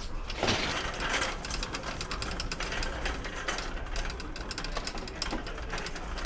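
Wire shopping cart being pushed, its casters and basket rattling in a steady stream of small clicks, louder in the first second or so.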